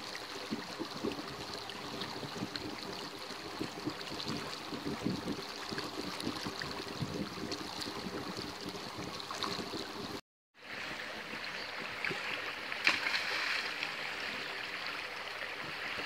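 Water running in a stream, a steady rushing flow that drops out for a moment about ten seconds in.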